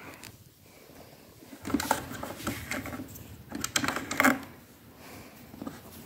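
Handling noise: a run of irregular plastic clicks and rustles, busiest between about two and four and a half seconds in, with no motor running.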